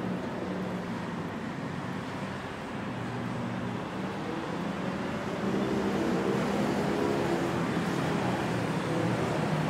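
City road traffic running steadily: a mix of engine hum and tyre noise, with the engine hum getting louder about halfway through.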